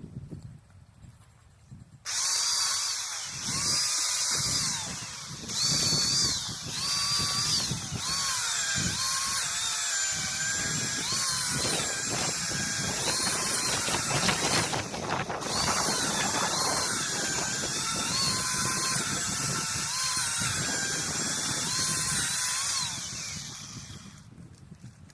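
Power saw cutting firewood. It starts about two seconds in, its pitch dipping and rising as the load changes, and winds down near the end.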